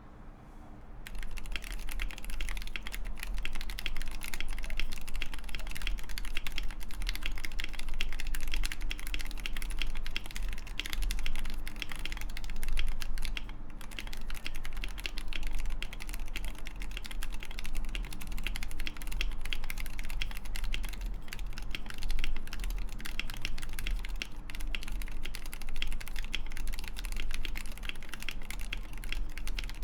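Continuous fast typing on a mechanical keyboard: a Mekanisk FJELL case with Wooting 60HE internals, lubed Gateron Lekker L45 magnetic switches on a full steel plate, and two layers of case foam. Dense, steady keystroke clacks start about a second in.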